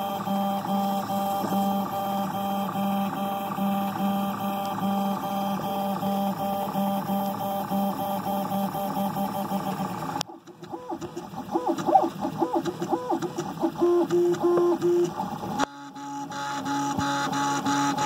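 Haribo 3030 3D printer printing, fitted with Drylin bearings, a Noctua fan and TPU stepper-motor dampeners: its stepper motors hum in steady tones over the fans. About ten seconds in the tones change abruptly into short, quickly shifting notes as the moves change. Near the end they settle again into a steady hum.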